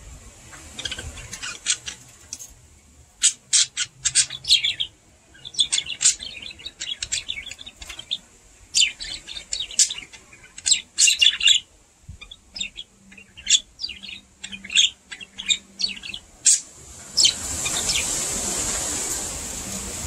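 Budgerigar chirping: quick runs of short, high chirps broken by brief pauses. Near the end a steady rushing hiss comes up under the chirps.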